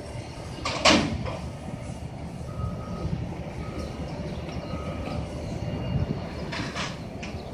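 Steady low rumble of traffic and machinery, with a vehicle's reversing alarm beeping three times, about a second apart, in the middle. A loud sudden rush of noise, falling in pitch, comes about a second in.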